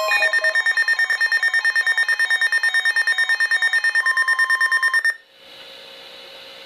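Reecom R-1650D weather radio sounding its alert alarm for a Required Weekly Test: rapid electronic beeping, about ten beeps a second, that cuts off abruptly about five seconds in. Faint radio hiss follows.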